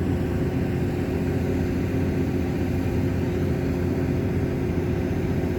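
A steady mechanical hum with a low drone and a few constant tones, like an engine or motor running without change.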